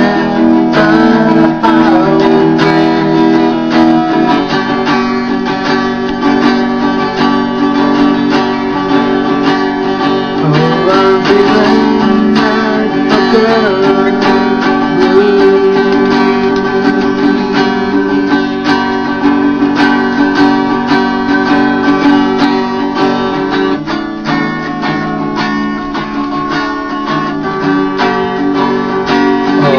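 Hollow-body archtop guitar strummed in a steady blues rhythm, chords ringing continuously with closely spaced strokes.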